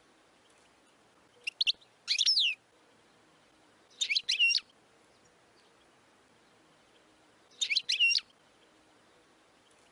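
European goldfinch singing in short twittery phrases of quick, sweeping high notes: a brief pair of notes, then three bursts of song separated by pauses of a second or more.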